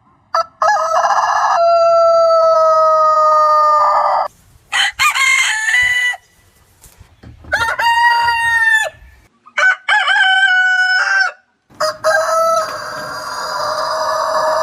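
Roosters crowing, about five crows one after another, each a long call ending in a drawn-out note, with sudden cuts and short silences between them. The crows come from different roosters, each with its own pitch and length.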